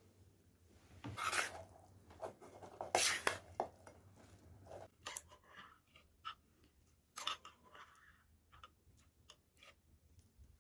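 Mukbang eating sounds: a spoon scraping and clicking against a bowl, likely mixing bibimbap, with chewing. The scrapes and clicks are irregular, with a few longer scrapes standing out.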